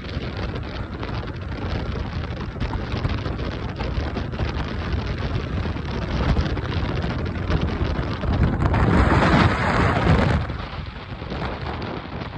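Wind and road noise of a car moving at highway speed, with wind rushing over the microphone. It swells louder for about two seconds near the end.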